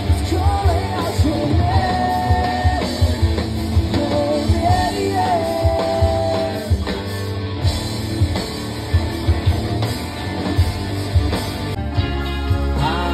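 Live rock band playing: a woman sings a melody over guitars, bass and a steady drum beat. About twelve seconds in, the music cuts abruptly to another band's live set.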